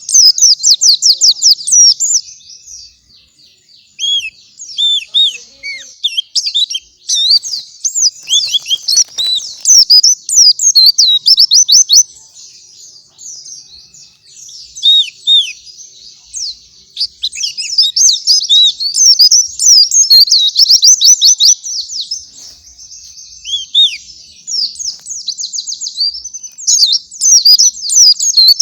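Pleci (white-eye) singing its fast gacoran song: rapid, high-pitched chirps and trills in quick succession, easing off a few times before picking up again.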